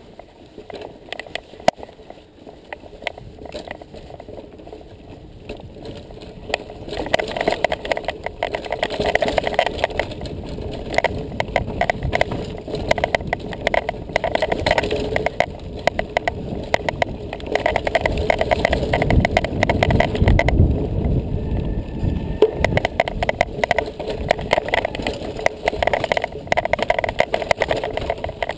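Mountain bike riding a dirt forest trail: tyres rolling over dirt and roots, the bike rattling and clattering, with many sharp clicks and knocks. It gets louder about a quarter of the way in.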